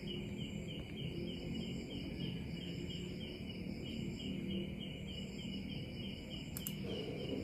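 Insects chirping steadily in the background, about four or five chirps a second, over a low hum; a single sharp click near the end.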